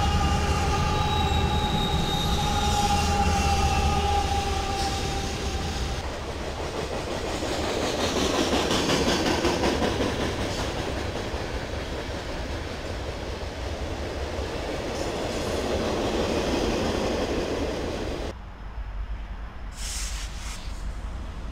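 Freight train passing close by: the diesel locomotives go past first with a low rumble and a steady high whine, then the loaded freight cars roll by with a broad clatter of wheels on rail. About 18 seconds in, the sound changes abruptly to a quieter rumble as another diesel locomotive rolls past.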